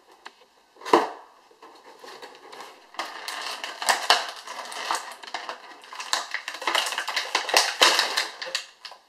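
A cardboard toy box and its plastic packaging being opened: a sharp snap or tear about a second in, then several seconds of dense crinkling and crackling as the packaging is handled.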